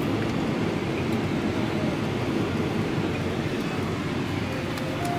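Jet airliner cabin noise during the descent to land: a low, steady rumble of engine and airflow with no change.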